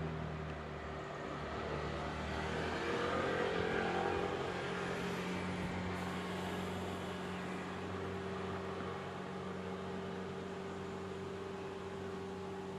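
Steady low mechanical hum with hiss, swelling a little between about two and five seconds in.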